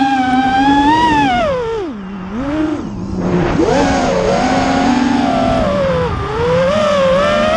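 FPV freestyle quadcopter's brushless motors whining as heard from its onboard camera, the pitch rising and falling with the throttle. The whine drops low about two seconds in, as the throttle is cut for a dive, then climbs back up and dips briefly once more near the end.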